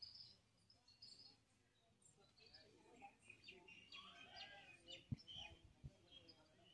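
Very faint outdoor ambience with scattered bird chirps, and a couple of soft thumps near the end.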